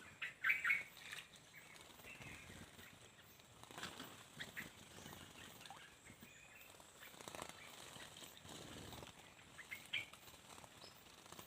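Small birds chirping and flapping their wings while bathing: scattered short chirps, the loudest a quick cluster about half a second in and another near the end.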